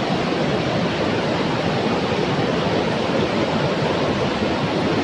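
Steady rush of a river pouring over rocky rapids, a continuous loud roar of white water.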